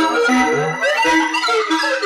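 Electronic music from Buchla and Eurorack modular synthesizers: overlapping runs of short pitched notes over low bass notes that come and go, with a few held high tones.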